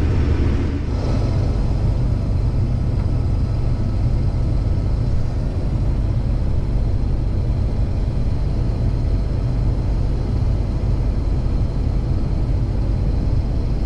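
Case IH 2388 combine running steadily through corn harvest: a continuous low engine drone with no breaks or changes.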